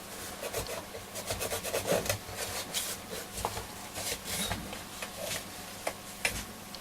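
Irregular rubbing and scraping strokes against the dirty case of a transistor radio as it is handled and rubbed by hand.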